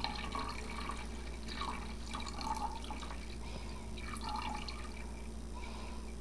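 Water being poured from a pitcher into the tank of a Kirby carpet shampooer, a continuous trickle with small splashes and drips.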